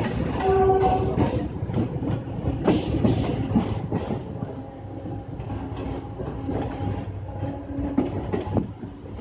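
Mumbai suburban local electric train running, heard from inside the carriage at the open door: rumble and clickety-clack of the wheels over rail joints. A short pitched tone comes about half a second in, and a faint steady whine runs through the second half as the noise eases off.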